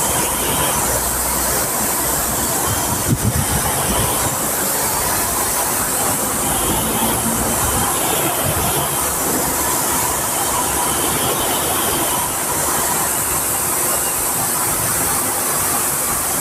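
High-pressure washer jet spraying water onto a car's body panels and glass, a steady hiss of spray, as dried white clay-powder paste is rinsed off the paintwork.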